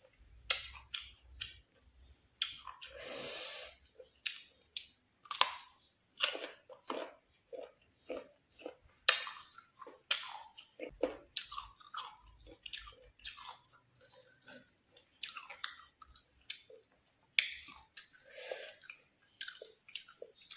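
Close-miked bites and chewing of crisp, unripe green mango: irregular sharp crunches that come several to a second, with one longer crunching stretch about three seconds in.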